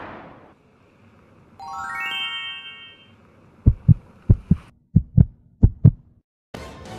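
Cartoon sound effects: a quick upward run of bell-like tones, then a heartbeat effect of about four low lub-dub thumps, followed near the end by music starting.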